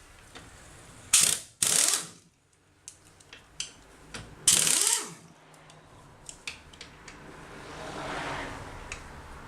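Mechanical ratcheting in three short loud bursts, two close together about a second in and one more near the middle, with scattered metallic clicks between them and a softer rushing noise that swells and fades near the end.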